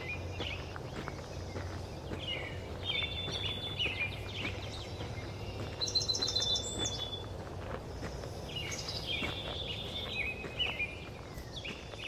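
Several songbirds singing in a dawn chorus, with repeated short phrases and a higher, faster trill about halfway through. Faint footsteps crunch on a gravel path over a low steady background rumble.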